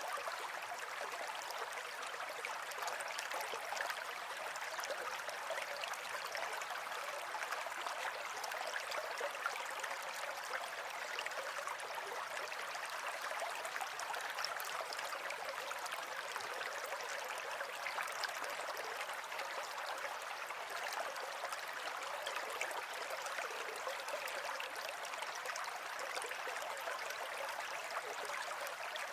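Natural running water flowing steadily, an even rushing sound with no pauses or changes.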